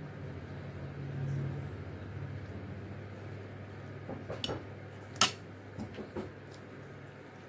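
Metal spoon clinking and scraping against a ceramic plate while scooping rice, a few light clicks in the second half and one sharp clink about five seconds in, over a steady low hum.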